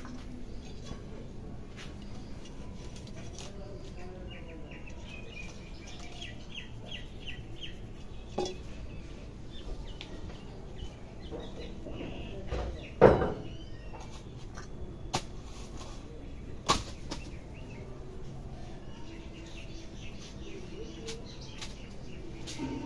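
Hands rubbing and patting an oiled scalp and hair during a head massage: a soft steady rustle with scattered sharp clicks and one louder thump about halfway through.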